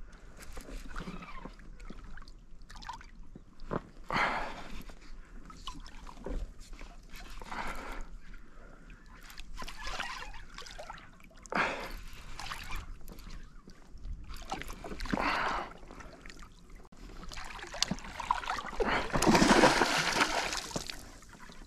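Hooked bass splashing and thrashing at the water surface while it is played on the line, in several separate bursts, with the longest and loudest splashing near the end as the fish comes alongside.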